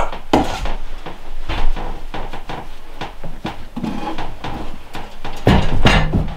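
Leather work boots handled on a wooden windowsill: an irregular string of knocks, taps and rubbing as they are picked up, turned over and set down.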